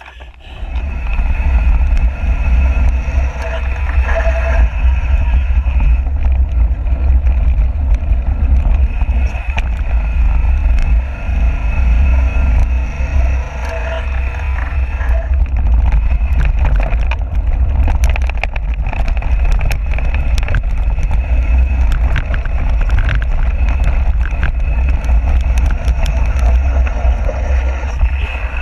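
Wind buffeting the microphone of a camera mounted on a mountain bike during a fast downhill run on a dirt trail, with tyres rolling over dirt and the bike rattling and knocking over the bumps. It starts about a second in as the ride begins.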